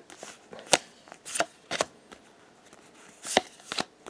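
Pokémon trading cards from a freshly opened booster pack being flipped through one at a time, the card stock giving about five short, sharp snaps at uneven intervals.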